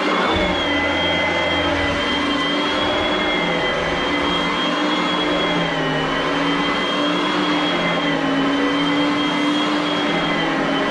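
Oreck upright vacuum cleaner running steadily, its motor's high whine dipping slightly in pitch now and then.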